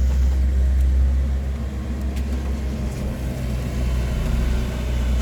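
Opel Astra H's 1.6-litre Z16XER four-cylinder petrol engine idling steadily with an even, low hum, run as a test of a used engine.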